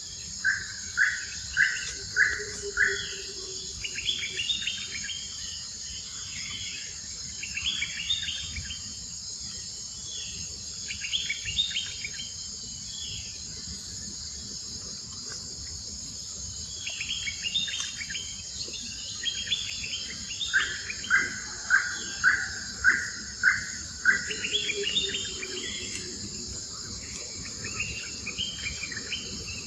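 Steady, high-pitched insect drone with bird calls over it: scattered chirps, and twice a run of five or six loud, evenly spaced notes, near the start and about twenty seconds in.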